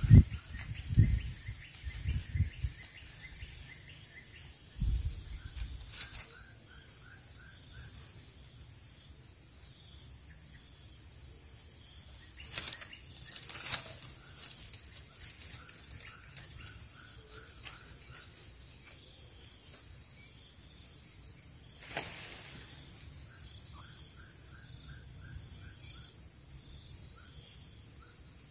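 Steady high-pitched insect chorus of crickets or cicadas, with short runs of rapid faint chirps three times and a few low knocks in the first few seconds.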